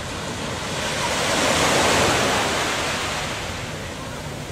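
Small sea waves washing onto the beach, one wash swelling about a second in and slowly fading away.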